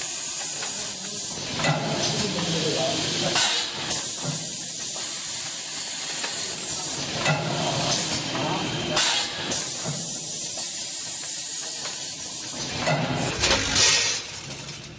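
Automatic multi-lane vertical packing machine running: a steady air hiss from its pneumatic system, with short louder bursts of air and mechanism every two to three seconds as the pouch clamps and sealing jaws cycle.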